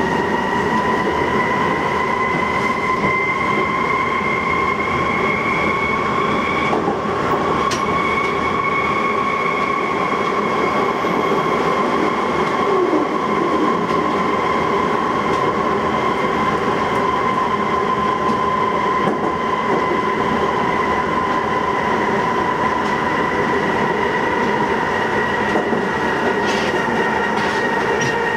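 Berlin U-Bahn GI/1E train running at speed through a tunnel, heard from the driver's cab: a steady rumble of wheels on rail under a high whine. The whine climbs slightly over the first seven seconds, breaks off for a moment, then slowly sinks in pitch.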